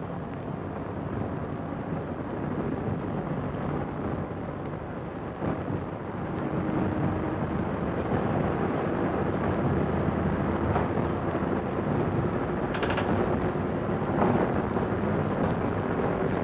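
Diesel multiple unit railcar accelerating from rest, its underfloor diesel engines and running gear giving a steady rumble. The rumble grows louder about six seconds in, with a few faint clicks later on.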